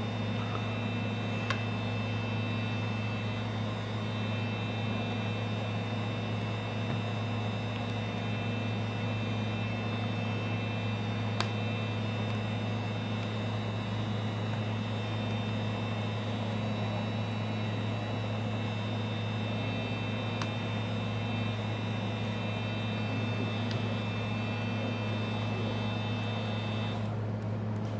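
Steady electrical hum with a thin high whine over it; the high part drops out near the end, leaving the low hum.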